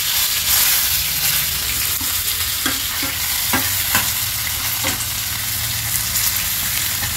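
Hot oil sizzling in a pan of tempering with cumin, mustard seeds, garlic and curry leaves as chopped onion is stirred in. A spatula scrapes and taps against the pan several times around the middle.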